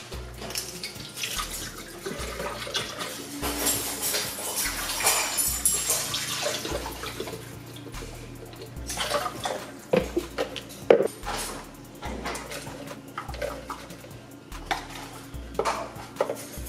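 Hazelnut milk pouring from a carton into a plastic blender jar, a steady splashing hiss over the first several seconds. After that comes the knocking and clatter of the jar and ingredients being handled on the counter, over background music with a steady bass beat.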